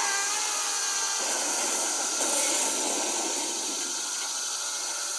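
Cartoon sound effect of cicadas buzzing: a steady, rasping drone.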